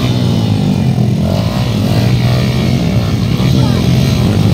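Yamaha Sniper underbone motorcycle engine running under throttle, holding a fairly steady pitch, as the bike is forced through deep mud with its rear wheel churning.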